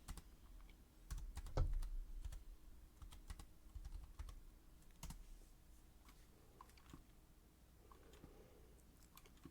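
Faint typing on a computer keyboard: a run of quick key clicks over the first few seconds, thinning to a few scattered clicks later.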